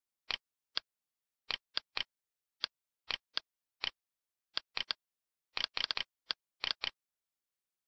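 Computer mouse clicks, short and sharp, coming irregularly one to three times a second, some in quick pairs and a rapid flurry about six seconds in, with dead silence between them.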